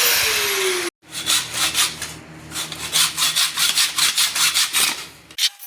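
An angle grinder spinning down with a falling pitch for about the first second. After an abrupt cut, rapid back-and-forth hand-sawing strokes on metal, about four or five a second.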